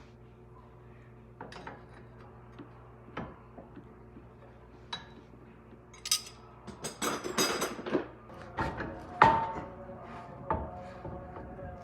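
Clanks and clatter of metal tools and parts being handled: scattered knocks at first, a run of clattering in the middle and a sharp loud knock just after. A low hum stops about a second in.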